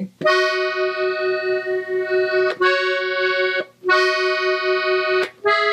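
Gabbanelli three-row button accordion tuned in E, played slowly in B major: four long held notes with brief gaps between them, the last still sounding at the end.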